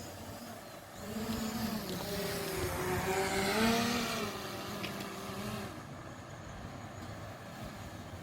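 KiHa 183 diesel railcar running along the track with a steady rumble and hiss. From about one second in to about six seconds in it grows louder, with a wavering, pitched tone over the noise.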